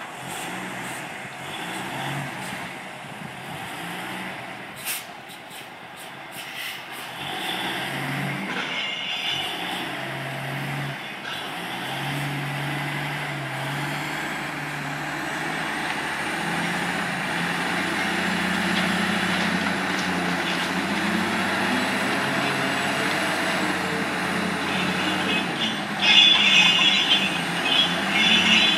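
Grapple yarder's diesel engine running, its pitch stepping up and down as the machine works, with a few sharp clicks and a clatter of metal rattling near the end.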